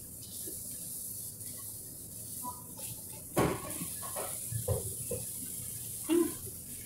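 Kitchen background: a steady hiss, like a tap running or a ventilation fan, with a few knocks and dish clatters, the loudest a little past the middle, and a short low sound near the end.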